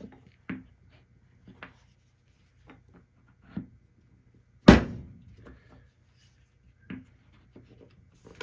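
Short, scattered clicks and taps of a bench chisel paring dried glue squeeze-out from small glued wooden test blocks, with one sharp, much louder knock about halfway through.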